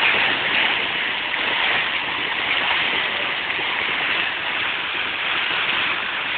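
Hailstorm: hail and heavy rain pelting down steadily, a dense, even wash of sound.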